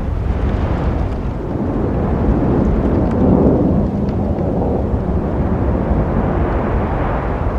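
Road traffic noise with a heavy low rumble that builds to a peak about three seconds in and then eases off, like a vehicle passing close.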